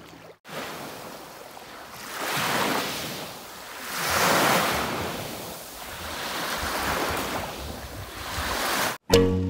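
Small sea waves washing onto a sandy beach, swelling and ebbing about three times.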